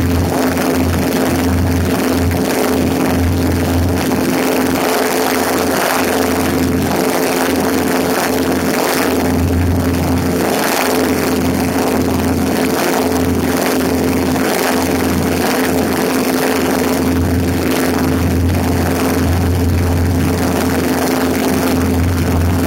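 Cessna 150's Continental O-200 engine and propeller droning steadily in flight, heard from outside the cabin on the wing strut, with wind rushing and buffeting across the microphone.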